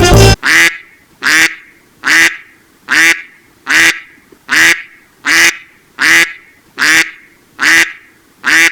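A duck quacking over and over in a steady rhythm, a little more than one quack a second, each quack much like the last.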